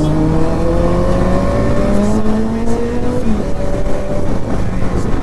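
Motorcycle engine under way, pulling through a gear with its pitch rising slowly for about three seconds, then dipping briefly at an upshift and running on steadily.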